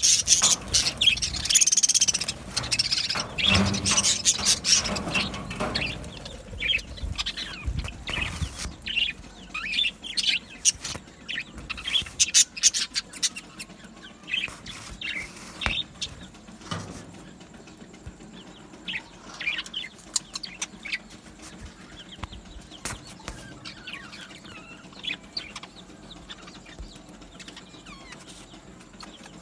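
A flock of budgerigars chirping and chattering, with the sound of movement and fluttering in the first few seconds, then thinning to scattered chirps.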